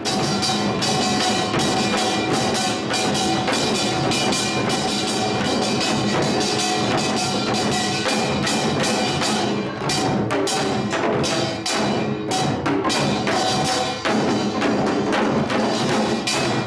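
Samul nori ensemble playing fast, dense Korean percussion: janggu and buk drums beaten in quick strokes under the steady metallic ringing of the kkwaenggwari and jing gongs.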